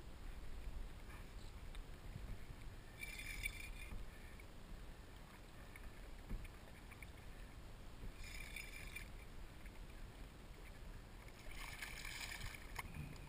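Water lapping against a kayak hull with light wind on the microphone, with two brief high buzzes about 3 and 8 seconds in. Near the end a hooked mahi splashes at the surface beside the kayak.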